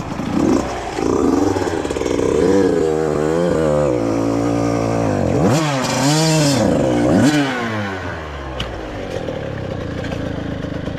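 85cc two-stroke dirt bike engine revved up and down several times while being ridden through deep water, with a burst of hiss around the middle. Near the end it settles to a steadier run.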